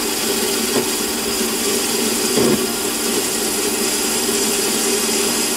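Metal lathe running with the tool taking a turning cut on a bar-stock cylinder end cap: a steady motor and gear hum with a hiss of cutting over it, fading near the end.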